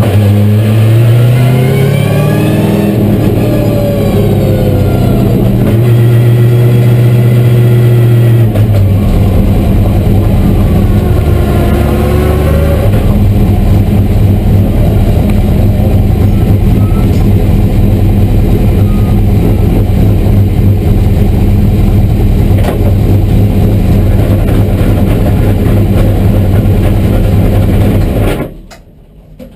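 Holden Commodore VE V8 Supercar's 5.0-litre V8 heard from inside the cockpit, its revs rising and falling repeatedly for the first dozen seconds. It then settles into a steady, low, lumpy rumble at low speed, and the sound cuts off sharply near the end.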